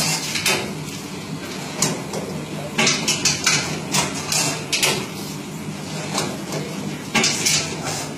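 Mushroom substrate bagging machinery running: a steady motor hum with irregular sharp clacks and knocks from the mechanism.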